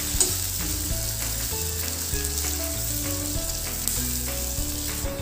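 Sliced onions frying in hot oil with whole spices in a kadhai: a steady sizzle as they are sautéed toward golden brown.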